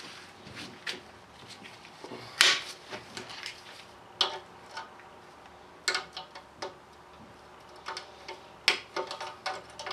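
Sharp metallic clinks and taps at irregular intervals, some with a short ring, from tools and small valve-train parts handled during valve removal on a Cummins 24-valve diesel cylinder head.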